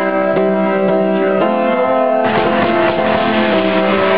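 Piano playing a slow run of notes and chords. About two seconds in, a fuller, noisier layer joins the music.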